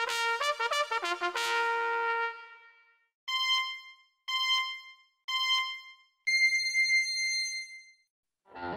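A short trumpet fanfare that dies away, then a race-start countdown signal: three short beeps of the same pitch about a second apart, followed by one longer, higher beep that gives the go.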